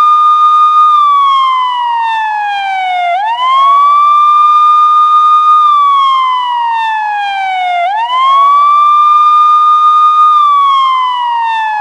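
Police siren in wail mode: the tone sweeps quickly up, holds briefly at the top, then slides slowly down, repeating about every four and a half seconds.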